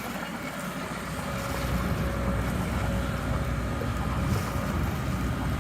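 Boat engine running steadily, a low rumble with a faint steady hum, under wind on the microphone and water noise.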